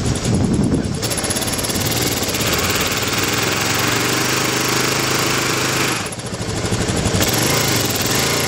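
Single-cylinder four-stroke dual-sport motorcycle engine running under way, with wind and road noise. The throttle eases off briefly about six seconds in, then picks up again.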